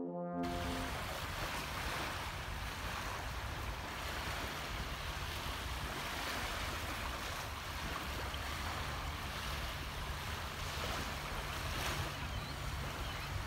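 Small waves lapping and washing steadily on a sandy beach, with wind rumbling on the microphone.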